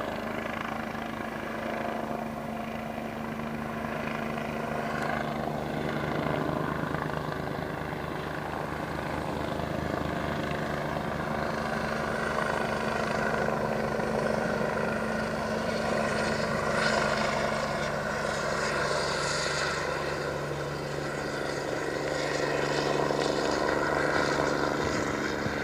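Helicopter running steadily: a turbine whine over the even beat of the rotor blades, swelling and easing a little in loudness.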